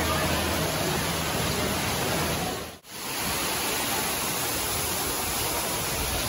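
Steady rush of falling water: water pouring and dripping from the ceiling of a rock tunnel, then water cascading over a grotto entrance. The sound drops out briefly about three seconds in.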